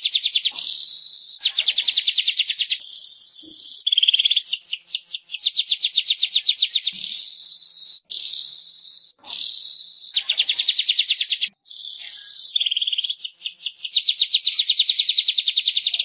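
Manyar (weaver bird) song: fast rattling trains of ticking notes alternate with buzzy, hissing phrases, repeating again and again with a couple of brief breaks.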